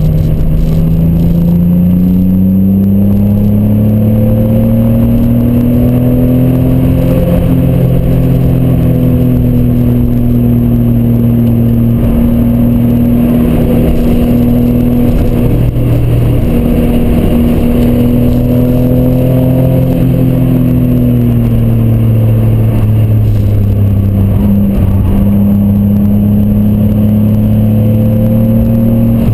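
Toyota Supra MK3 (MA70) 7M-GE straight-six engine running hard under load through a Blitz Nur Spec R aftermarket exhaust, heard from inside the cabin. The engine note rises over the first several seconds and holds, breaks briefly about halfway, rises again, then falls and levels off for the last few seconds.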